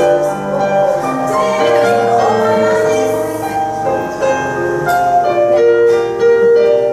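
Grand piano played in an improvisation, with held chords and melody notes changing every second or so.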